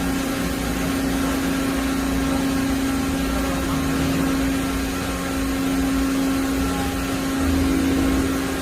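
Doosan DCM-2740F CNC double column machining center running, a steady machine hum with one strong held tone.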